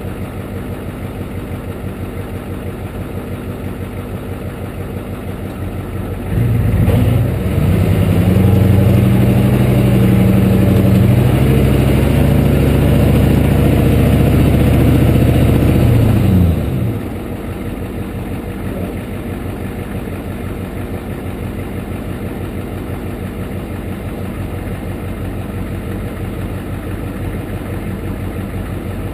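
1993 Ford F-250's 7.3-litre IDI V8 diesel engine running at low speed as the truck crawls a dirt trail, heard close beside the front wheel. About six seconds in it revs up much louder under throttle for some ten seconds, then drops back to steady low running.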